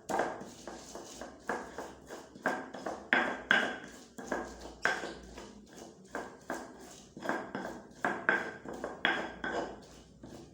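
A metal utensil clanking against a metal cooking pot in about a dozen irregular knocks, each with a short ring.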